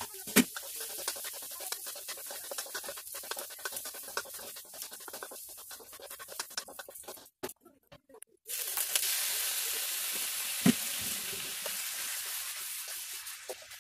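Spatula scraping and stirring onion, garlic and ginger in a hot nonstick wok, many small scratchy strokes over a light sizzle. After a short break about halfway, chicken pieces fry in hot oil with a loud steady sizzle, and a single knock comes partway through.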